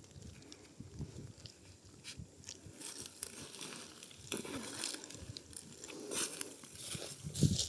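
Dry, ripe wheat stalks crunching and crackling as they are cut by hand with a sickle, in irregular strokes that grow louder toward the end.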